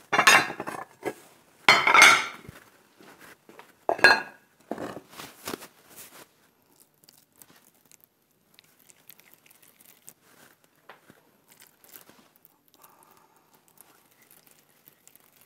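Dishes clattering, a few loud knocks in the first few seconds, as a plate is handled and set down; then faint soft sounds of hands rolling minced-meat mixture into meatballs.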